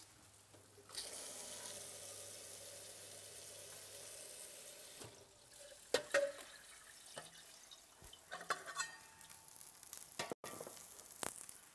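Tap water running into a stainless steel steamer pot for about four seconds, then stops. After it come scattered clinks and knocks of the metal steamer pots being handled and set down.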